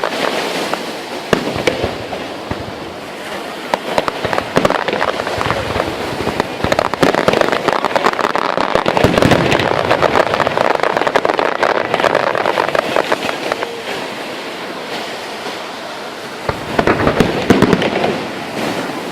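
Fireworks going off in quick succession: a continuous crackle of many small bangs that swells in the middle and again near the end.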